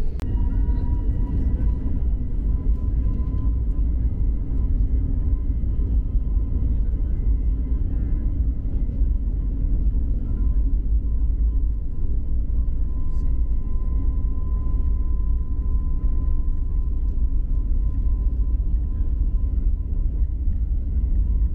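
Airbus A321neo jet engines heard from inside the passenger cabin while the airliner taxis: a steady deep rumble with a steady high tone running over it.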